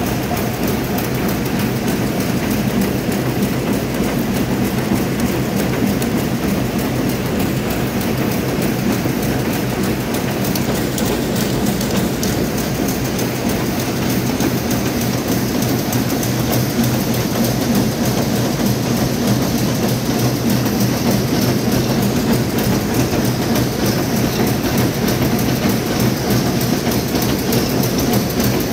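Twin-lane tobacco-pouch-making machine running at production speed, turning printed film into pouches: a steady, fast mechanical clatter over a constant low hum.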